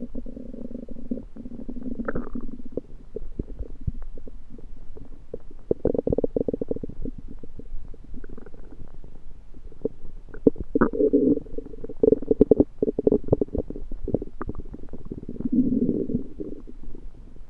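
Human stomach gurgling and rumbling, broken by runs of quick pops and clicks, with louder spells about six, eleven to thirteen and sixteen seconds in. The owner thinks the noises come from food he undercooked.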